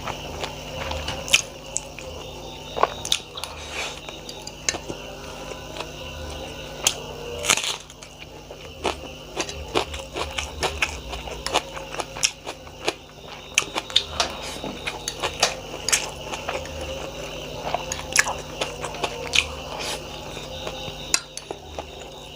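Close-miked chewing and biting of a mouthful of chow mein with tomatoes and onions: wet mouth clicks and sharp, irregular crunches several times a second. A steady low hum runs underneath.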